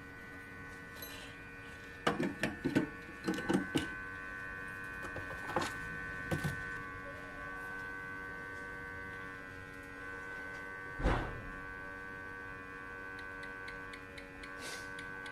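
Hot air rework station running, a steady hum of several tones while it heats a MOSFET to desolder it from the board. A few light clicks and taps come in the first few seconds, and a single thump comes about eleven seconds in.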